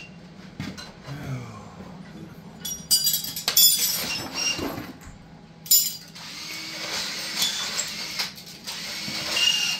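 Shop noise of metal parts and hand tools being handled: clinks, knocks and short scraping rasps, one after another, over a faint steady hum.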